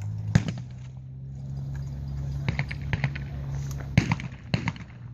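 Shotgun reports at a trap range over a steady low hum: one sharp, loud crack about half a second in, then several fainter cracks later on.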